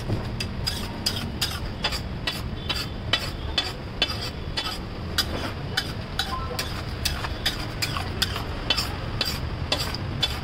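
Long steel spatula scraping and clacking against a large flat iron tawa as a thick pav bhaji vegetable mash is stirred and spread, about two to three strikes a second.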